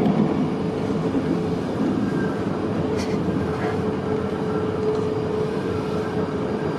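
Kintetsu electric train running, heard from inside the front car behind the driver's cab: a steady rumble of wheels on rail with a steady hum over it, and a single sharp click about three seconds in.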